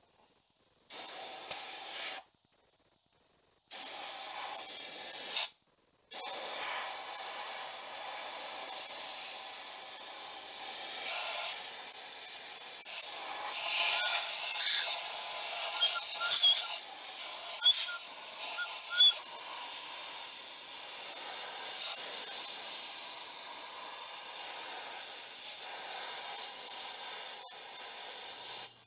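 Compressed-air blow gun hissing as it blows a freshly washed cast engine block dry so it won't flash-rust. Two short blasts, then a long steady blast with a few brief whistles partway through.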